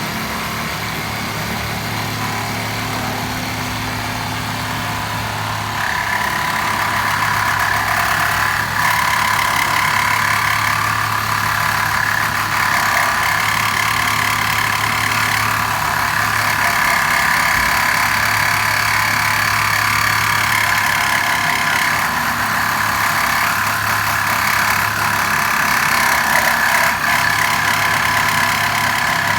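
Hilti hand-held power cutter running steadily with its blade in the cut. From about six seconds in the sound gets louder and higher-pitched as the blade bites into the material.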